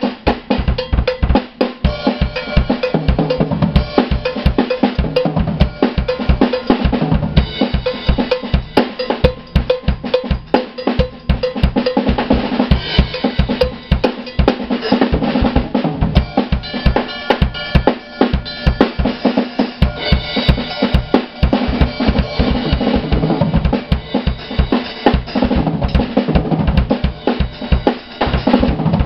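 Acoustic drum kit played solo: a dense, unbroken run of bass drum and snare strokes.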